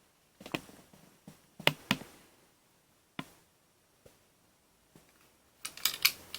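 A toy cap gun revolver's sharp clicks and snaps, about a dozen at uneven intervals, with a quick cluster of them near the end.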